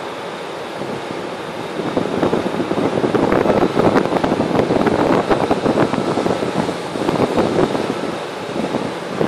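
Gusty wind buffeting the microphone over the steady running noise of an Amtrak Pacific Surfliner bilevel train standing at the platform; the gusts grow stronger about two seconds in.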